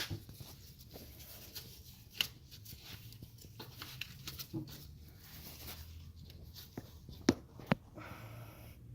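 Screwdriver prying and scraping under an old rubber jounce bumper on a Chevrolet truck's front suspension to pull it loose, with light rubbing and a few sharp clicks, two of them close together about seven seconds in.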